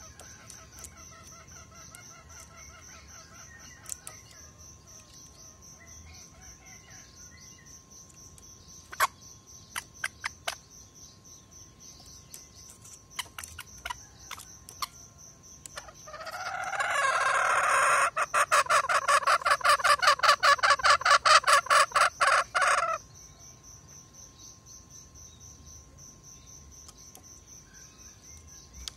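A green junglefowl rooster gives a loud, fast rattling call of rapid pulses lasting about seven seconds, starting a little past the middle. Crickets chirp steadily in the background.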